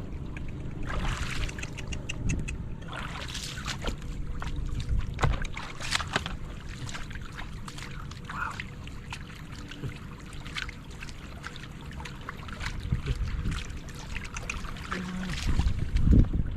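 Shallow water splashing and sloshing in irregular bursts, with scattered clicks and knocks, over a steady low rumble.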